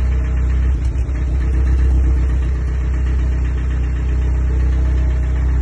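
Car engine running with a rapid, regular knock that seems to come from the oil pan (sump), a sign the engine is unwell.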